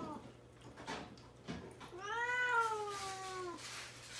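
Kitten meowing plaintively to be let out of its cage. The end of one meow is followed, about a second and a half in, by one long drawn-out meow that rises and then falls.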